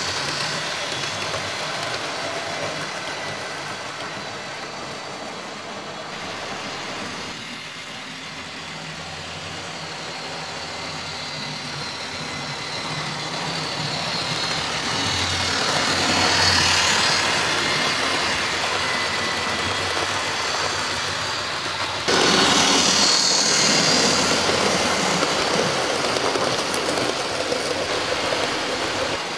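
OO-gauge model diesel locomotive and coaches running on the track: a steady electric-motor hum and rattle of wheels on rail. It grows louder, then jumps louder about 22 seconds in as the train runs close by.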